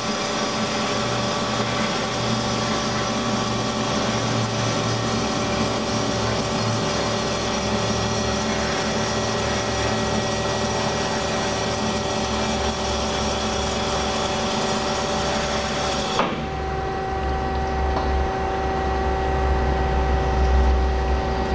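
Hyd-Mech S-23A horizontal bandsaw running under power, a steady machine whine and hum as the saw head lifts. About 16 seconds in there is a click, the higher whine and hiss cut off, and a lower steady hum carries on.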